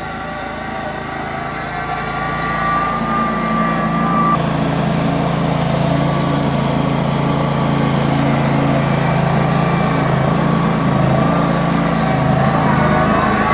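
A small engine runs steadily, growing louder over the first few seconds and then holding an even note.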